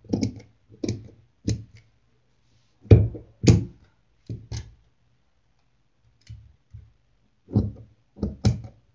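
Large steel tailor's shears snipping through folded net lace and cotton fabric on a cutting table: a run of short, separate cuts at an uneven pace, with a pause of about a second midway. A faint low hum runs underneath.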